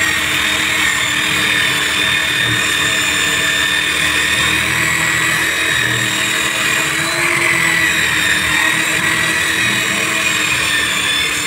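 Handheld power buffer running steadily with a round buffing stone pressed against a tubeless tyre's inner liner, grinding the rubber around a puncture to prepare it for a patch. A steady, high machine whine over a rasping hiss, stopping right at the end.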